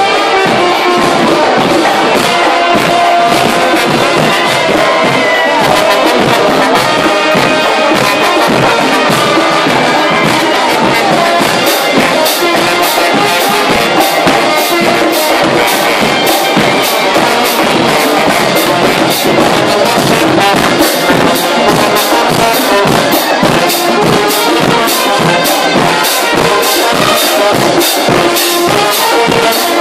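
Brass marching band playing loud live music, with a trombone close by carrying the lead. A steady beat of drum hits, about two or three a second, comes through more strongly from a little before halfway.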